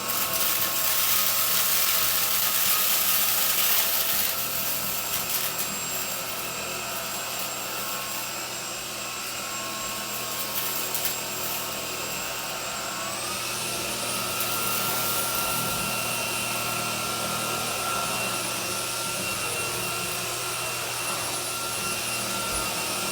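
Homeika cordless stick vacuum running with a steady high whine and rushing air, loudest for the first few seconds. About halfway through its pitch steps up, as if switched to a higher speed, and it cuts off abruptly at the end.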